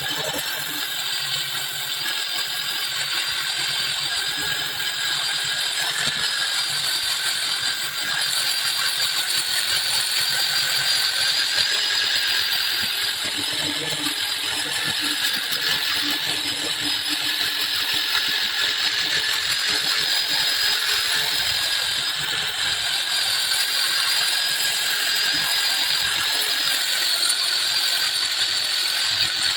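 A handheld electric power tool running steadily with a constant whine, working on wood.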